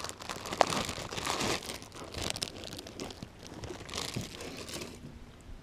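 Plastic zip-top bag crinkling and rustling close to the microphone as a slice of bread is pulled out of it, in irregular bursts that die away about five seconds in.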